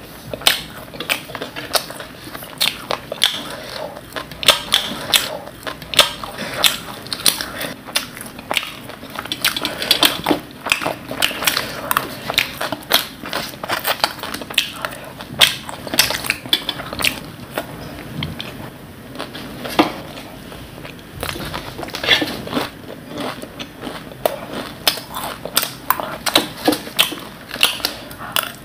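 Close-miked crunchy chewing of a spiced puffed-rice and puri chaat, with a spoon scraping and clinking in a metal bowl between bites: a quick, irregular crackle of bites and clinks.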